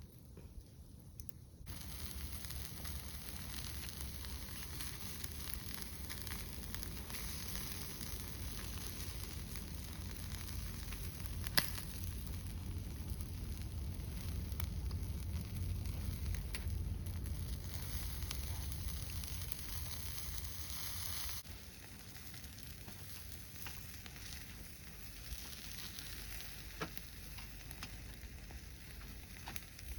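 Food sizzling as it fries in a pan. The sizzle grows louder through the middle, with a single sharp click about twelve seconds in, then falls to a softer sizzle about two-thirds of the way through.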